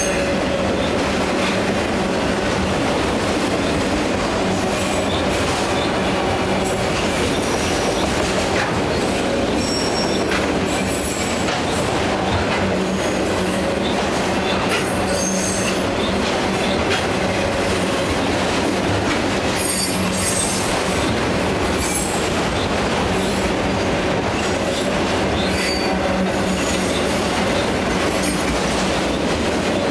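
Autorack freight cars rolling past: a steady rumble and clatter of steel wheels on rail, with brief high-pitched wheel squeals now and then.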